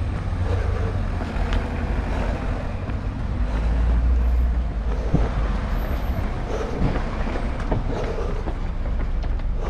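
Low rumble of moving air over the microphone of a runner's body-worn camera during a run, swelling about four seconds in, with faint footfalls on pavement.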